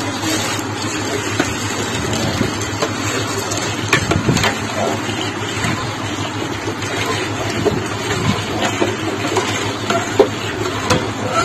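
Sugar syrup pouring in a thin steady stream into a large aluminium pot of burans (rhododendron) flower juice, splashing into the liquid, with a few light knocks of a metal cup against the pot.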